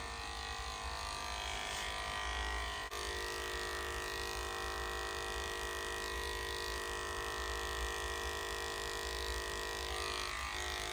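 Electric dog grooming clippers fitted with a #40 blade running steadily as they trim a puppy's ear, a constant motor hum with a brief click about three seconds in.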